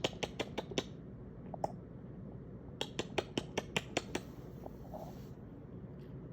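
Quick runs of sharp clicks made by a person, about six a second, to call a shiba puppy: one run at the start and another about three seconds in, followed by a brief high hiss.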